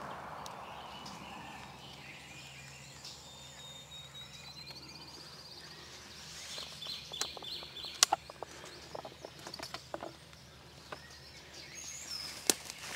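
The rolling echo of a shotgun blast fading away in the woods, then birds chirping and trilling. Several sharp snaps or knocks follow in the second half, the loudest about eight seconds in.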